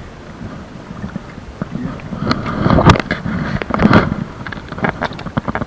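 Wind buffeting the microphone on a small fishing boat, with irregular knocks and rattles that are loudest around the middle.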